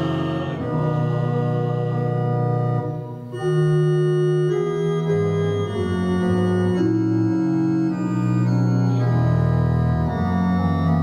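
Organ playing a hymn tune in held chords that change every second or so, with a brief lift between phrases about three seconds in.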